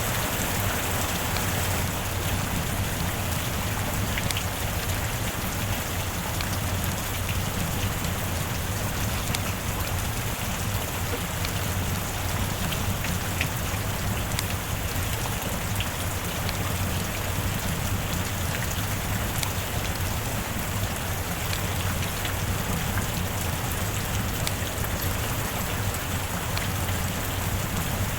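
Steady rain: an even hiss of falling rain with scattered sharp ticks of individual drops.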